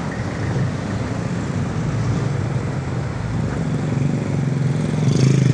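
Motorcycle engine running at low road speed, a steady low rumble that swells briefly near the end.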